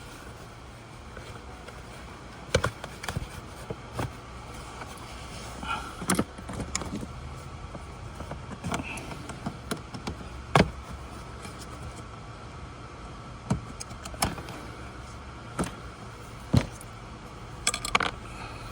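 Scattered clicks and knocks of a plastic dash trim cover being handled and fitted back into place, with about half a dozen sharper knocks a few seconds apart over a steady low hum.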